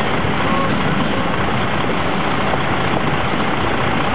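Double-stack intermodal freight cars rolling past at speed: a steady, loud noise of steel wheels on rail.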